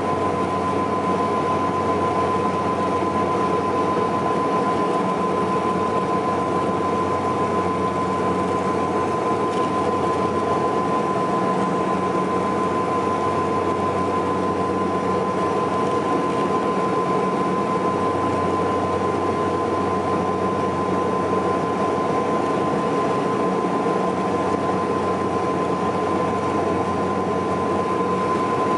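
Cabin drone of a Saab 340B's two General Electric CT7 turboprop engines and propellers in flight, heard from inside the cabin: a steady high whine on one note over a low hum, unchanging throughout.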